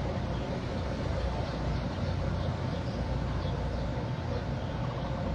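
Steady hum of distant city road traffic with no distinct events.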